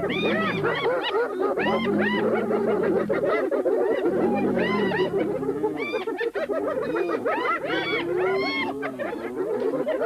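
A group of spotted hyenas giggling together: many short, high calls that rise and fall, overlapping one another, with slower, lower calls underneath.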